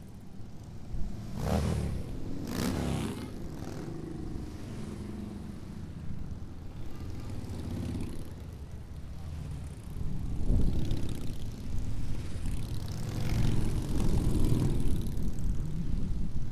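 A procession of large touring motorcycles riding past one after another, their engines rumbling and swelling as each pair goes by. Two loud passes come a couple of seconds in, and the sound grows louder again through the second half as more bikes go by.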